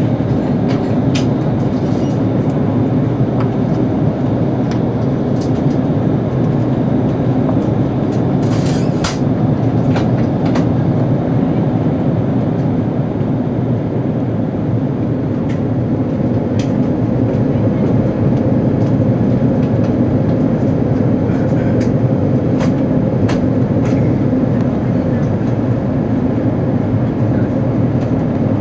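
Steady in-cabin noise of an Airbus A340-300 on approach, heard at a window seat over the wing: the even rumble of its CFM56 engines and the airflow over the fuselage, with a few light clicks now and then.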